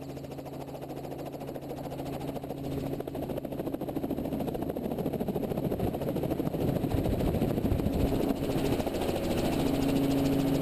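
Robinson R44 helicopter's piston engine and rotor running up before take-off, growing steadily louder.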